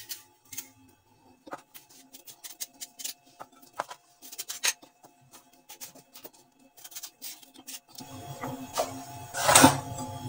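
Knife cutting the rind off muskmelon pieces: a string of short cuts and taps in irregular quick clusters. About 8 s in a low hum comes in, followed by one louder clatter.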